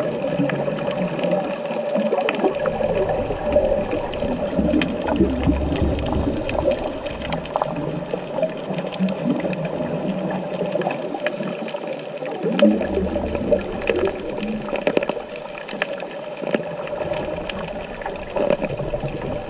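Underwater sound of a scuba dive, heard through a camera housing: the diver's exhaled regulator bubbles rumble in stretches every several seconds over a steady hum, with scattered sharp clicks throughout.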